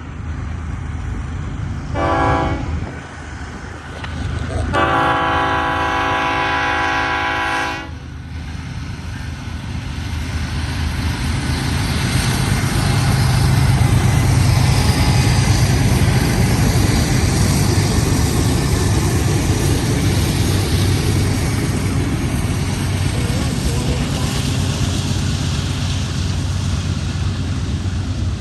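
BNSF diesel locomotives of a freight train sounding a multi-note air horn: a short blast about two seconds in, then a longer one of about three seconds. The locomotives' engines then drone steadily under power, with the rumble of wheels on rail, growing louder as they pass.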